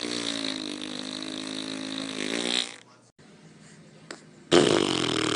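Two farts: a long, steady, pitched one lasting nearly three seconds, then after a short pause a louder, rougher, rattling one starting near the end.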